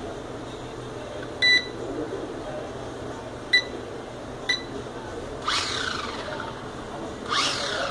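Syma X5C-1 drone transmitter beeping as its buttons are pressed: three short beeps, the second and third about a second apart. Two quick falling chirps follow near the end.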